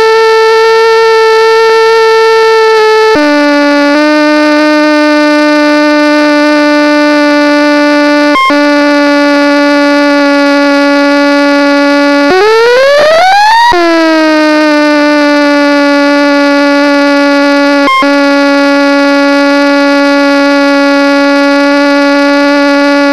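A loud, steady electronic tone with many overtones. It drops to a lower pitch about three seconds in, sweeps up and falls back once about twelve seconds in, and is broken by a few short clicks.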